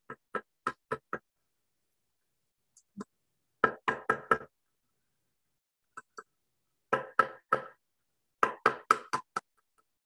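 Claw hammer driving small nails into a wooden board: runs of four or five quick taps on each nail, with short pauses between nails.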